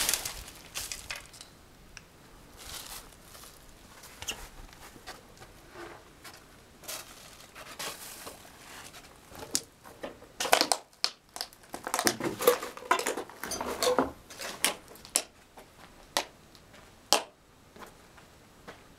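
Footsteps crunching and crinkling over rubble and plastic litter on a cellar floor, irregular, with a busier run of louder crunches in the second half and a sharp click near the end.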